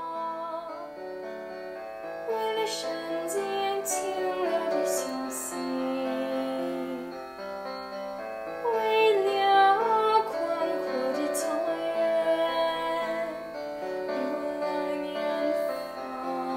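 A young girl singing a Mandarin song over a piano accompaniment.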